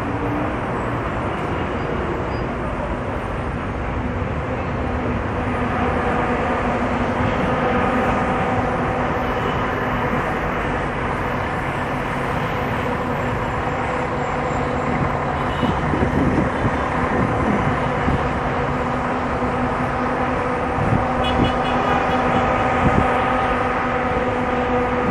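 Steady roar of heavy city traffic on a multi-lane avenue, heard from a footbridge above it. About six seconds in, a steady pitched hum from a vehicle joins it, and a few short knocks come later.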